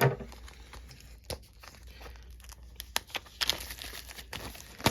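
Packaging being torn open and crinkled by hand: irregular crackling and tearing with scattered sharper snaps.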